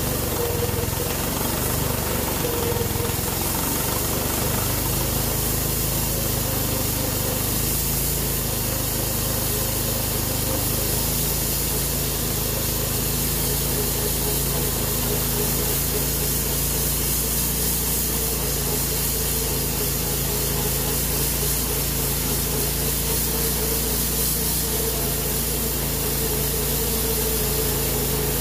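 Wood-Mizer LT10 bandsaw mill running steadily while its blade cuts through a maple log on a scalping pass.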